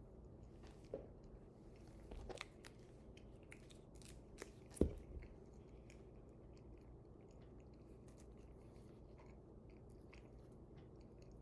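A person chewing banana close to the microphone: soft, scattered mouth clicks and smacks, with one louder smack about five seconds in.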